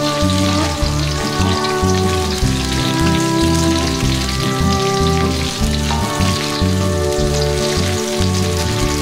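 Oil sizzling steadily as vegetables stir-fry in a wok, under background music with a bass line that changes note every half second or so.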